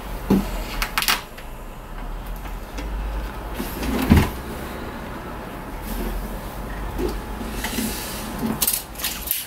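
Handling knocks and thumps as a wooden board and blocks are set down and shifted on a wooden floor, the heaviest thud about four seconds in. A few light clicks and rustles near the end.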